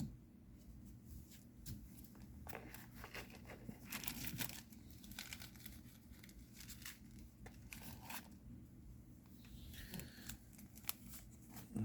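A trading-card booster pack wrapper being torn open and crinkled, in short scattered rustles that bunch up about four seconds in and again near the end.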